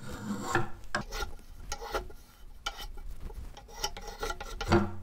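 Spokeshave set for a very light cut, shaving the edge of a wooden chair back splat: a run of short scraping strokes, about two a second, the last one near the end the loudest.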